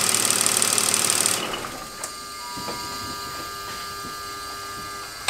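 BMW car engine held at raised revs, about 3000 rpm, then let off about one and a half seconds in, falling back to a steady, much quieter idle. The revs are raised to check that the alternator's regulator holds the charging voltage.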